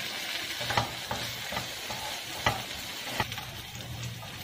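Wooden spatula stirring diced carrots, peas and onion in a nonstick frying pan over a steady light sizzle of frying in ghee, with occasional sharp taps of the spatula against the pan.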